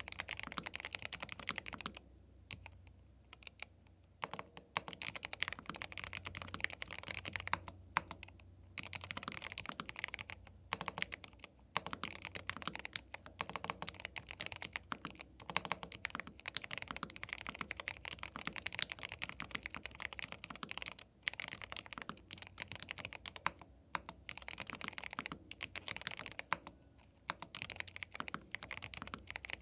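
Fast, continuous typing on a YUNZII B75 Pro 75% gasket-mount mechanical keyboard with Milk linear switches: dense key clacks with a few short pauses.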